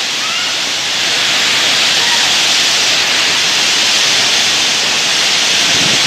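Torrential rain and strong gusting wind of a severe thunderstorm, a loud, steady rush of noise.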